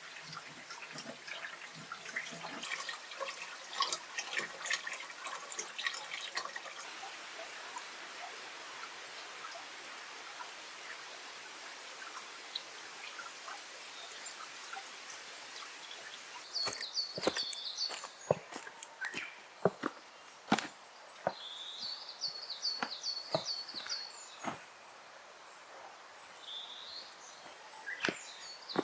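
A small bird singing a short, high trilled phrase of quick repeated notes three times in the second half. Under it runs a soft crackling hiss, broken by scattered sharp clicks and knocks.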